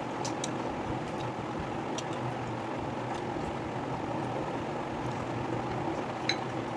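Eating sounds: a few small clicks of food and fingers or lips, one a little louder near the end, over a steady background hiss.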